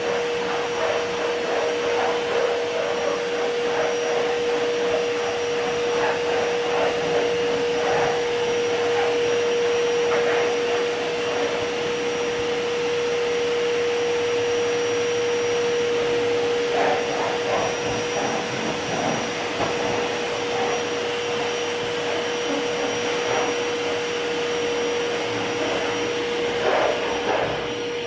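A Ramtons 1500-watt wet and dry vacuum cleaner running steadily, its motor giving a constant whine over the rush of air, with short scraping rattles every few seconds.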